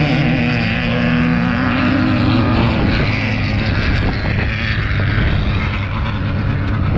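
Off-road race vehicle's engine running loud at speed, its steady engine note fading after about three seconds into a rough rumble.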